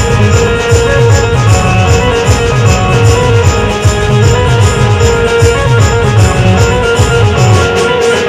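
Loud amplified band music: a fast, steady beat of bass and drum hits with high cymbal ticks about three a second, under held melody notes from guitar or keyboard.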